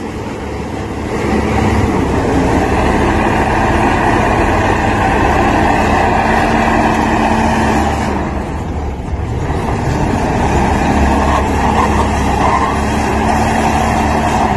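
Chevrolet SUV's engine held at high revs in a tug-of-war pull, its rear tyres spinning and scrabbling on gravel and dirt. The revs dip and then climb again about nine seconds in.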